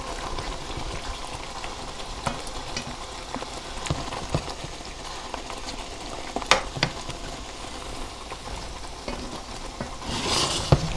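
Tomato sauce sizzling steadily in a hot pan while a slotted spoon spreads it over steaks, with a few sharp clicks of the spoon against the pan.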